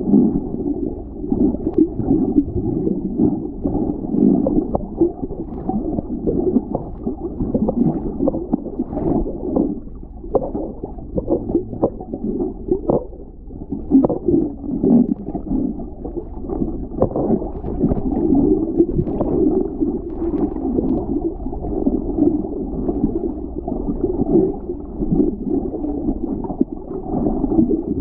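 Muffled underwater sound of moving water with gurgling, rising and falling unevenly, dull with almost nothing in the upper range.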